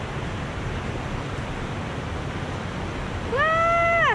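Shallow river water running steadily over stones. Near the end a woman's voice calls out one long high syllable that rises and then falls.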